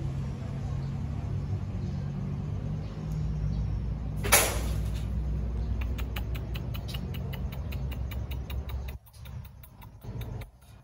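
An engine running steadily with a low rumble that drops away about nine seconds in, a sharp knock about four seconds in, and a rapid ticking near the end.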